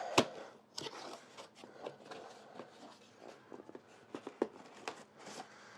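A cardboard CPU-cooler box being opened and its packaging handled: irregular clicks, taps and rustles, with one sharp click just after the start.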